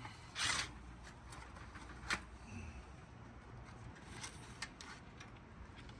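Hands handling a run capacitor and its mounting hardware in an air-conditioner condenser's control panel as it is taken off the bracket: a short scrape near the start, a sharp metallic click about two seconds in, then a few faint ticks.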